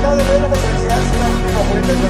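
Electronic dance music with a steady beat and a synth melody.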